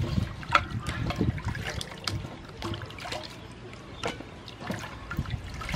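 Water sloshing and splashing in a large metal basin as hands wash edible amaranth leaves and pumpkin pieces, in irregular strokes with a louder splash near the end.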